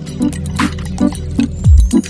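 Background music with a steady beat: a deep bass kick that falls in pitch, a sharp clap, and quicker light percussion hits about three times a second.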